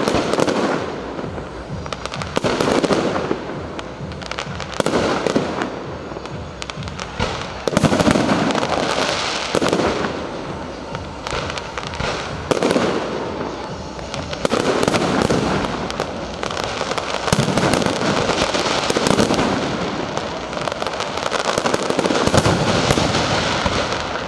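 Fireworks display: aerial shells bursting every two to three seconds, with a dense crackle of sharp pops between the bursts.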